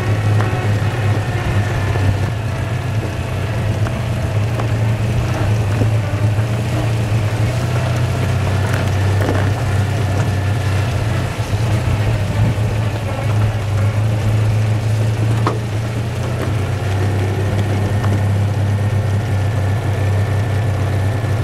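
Citroën 2CV6's air-cooled flat-twin engine running steadily while the car drives along, heard from inside the open, doorless body.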